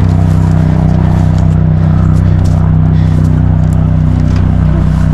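Small boat's gasoline motor running steadily under way, a loud, even drone.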